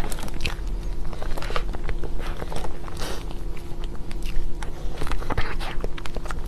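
Close-up eating sounds of someone biting and chewing chocolate cake, with irregular sharp clicks and crunches.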